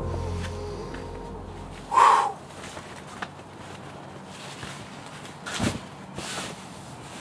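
Background music fading out over the first two seconds, then outdoor quiet broken by one short, loud cry about two seconds in and two fainter, brief rustling sounds near the end.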